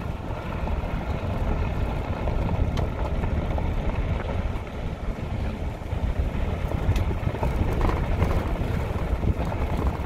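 Vehicle driving slowly on a dirt road, heard from inside the cab: a steady low rumble of engine and tyres, with wind buffeting the phone's microphone.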